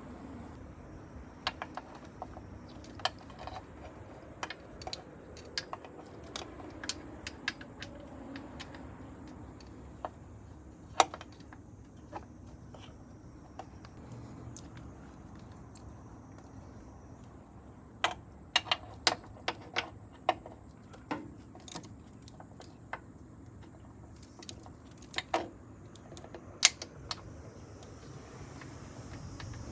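Irregular sharp clicks and light taps, like hand tools and small parts being picked up and set down, over a faint steady hum. The clicks come in clusters, with a quieter stretch in the middle.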